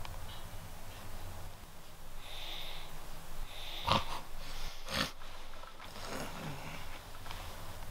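A sleeping person breathing noisily and snorting, with a low falling groan about six seconds in. Two sharp knocks about four and five seconds in are the loudest sounds.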